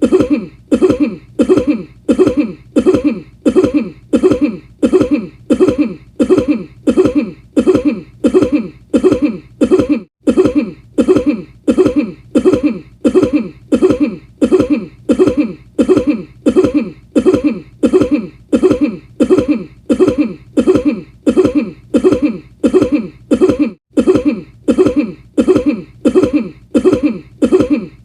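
A person's cough, the same recorded cough looped over and over at an even pace of about three coughs every two seconds, with two tiny gaps in the loop.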